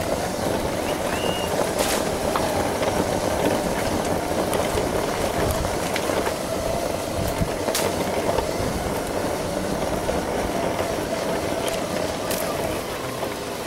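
Segway personal transporter riding along a sandy path: a steady whine from its electric drive over a rumble from the tyres and wind, with a few sharp clicks from bumps.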